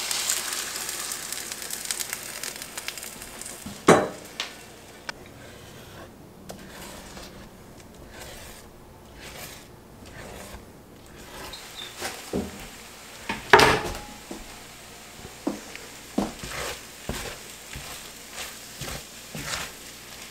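Beaten eggs sizzling as they go into a hot pan of sautéed peppers, the sizzle dying down over the first few seconds. Then scattered knocks and scrapes of a utensil against the pan as the eggs are scrambled, the loudest knock about halfway through and a run of lighter ones near the end.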